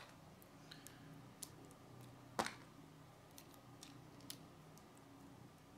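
Plastic Lego pieces being handled and pressed together: a few faint, sharp clicks and taps, with one louder click about two and a half seconds in, over a faint low hum.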